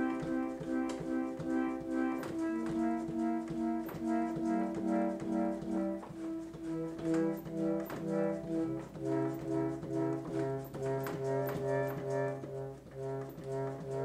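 An 1840s–1850s F. H. Messer melodeon, a suction-winded reed organ, playing held chords over a bass line that steps downward. The tone swells and fades about twice a second, and the bellows valves click throughout. The instrument is mid-restoration, and its homemade bellows leak badly.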